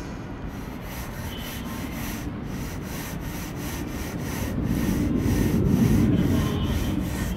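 Jet engines of a twin-engine airliner climbing out after takeoff, heard from the ground as a rushing rumble that pulses in the upper hiss. It swells to its loudest about six seconds in and then begins to fade.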